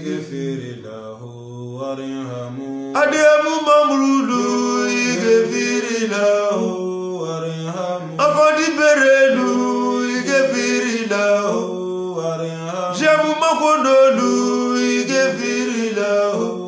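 A man singing a chanted melody in long held notes that step up and down, in phrases starting about every five seconds.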